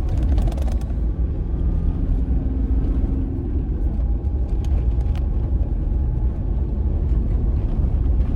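Road noise inside a vehicle driving on a gravel road: a steady low rumble of tyres and engine, with a few light clicks and rattles about a second in and again about five seconds in.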